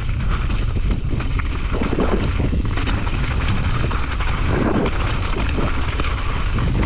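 Steady wind rumble on the camera microphone as a Specialized Kenevo SL e-mountain bike descends rocky gravel singletrack, with tyres crunching over loose stones and frequent short clicks and rattles from the bike on the rough ground.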